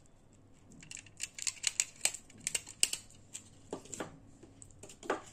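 Aluminium foil crinkling and rustling in quick, irregular crackles as it is handled and pulled off the tops of ice-cream-filled glasses. The crackles start about a second in, and a louder one comes near the end.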